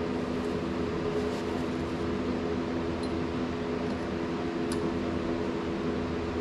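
Steady machine hum holding a few low tones, with one faint light click about three-quarters of the way through.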